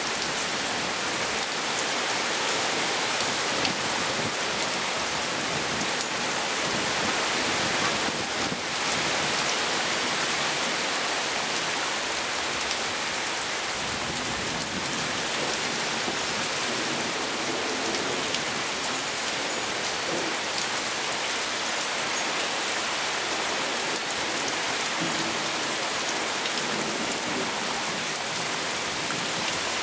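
Heavy rain pouring down in a steady, dense hiss, with one brief dip about eight and a half seconds in.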